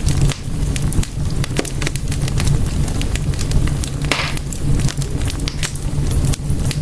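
Wood fire in a fireplace crackling, with frequent sharp pops over a steady low rumble. A brief hiss comes about four seconds in.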